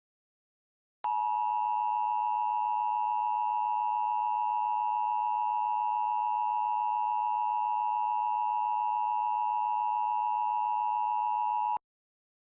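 Emergency Alert System attention signal: a steady two-tone alarm tone that starts about a second in, holds at one even pitch and level for roughly eleven seconds, and cuts off abruptly. It marks the start of an emergency broadcast warning.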